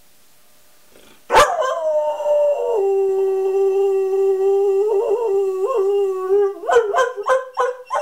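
Greyhound rooing: a loud, sudden howl that starts about a second in, drops in pitch and is held steady for several seconds. It then breaks into a quick run of about six short roo notes near the end.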